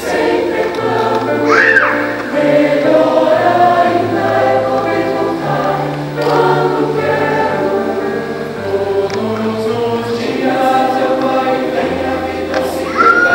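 Mixed choir of women's and men's voices singing a Brazilian song in parts, the low voices holding long notes that step from chord to chord under the melody.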